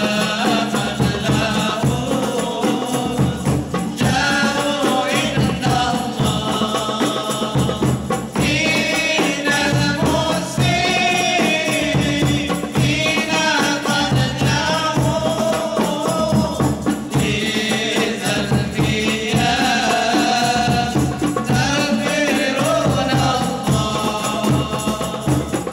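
A man sings a sholawat, an Islamic devotional song, into a microphone, backed by a steady beat of hand-struck drums including a large double-headed barrel drum. The music stops at the very end.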